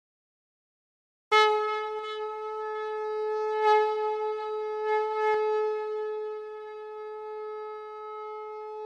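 Conch shell (shankh) blown in one long steady note, starting suddenly about a second in and holding for over seven seconds.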